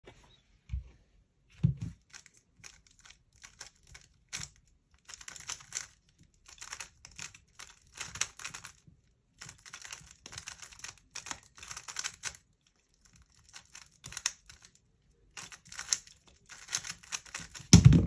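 3x3 speed cube being turned fast, its plastic layers clicking and clacking in rapid bursts of turns separated by brief pauses. A low thump comes twice in the first two seconds, and the loudest thump lands just before the end.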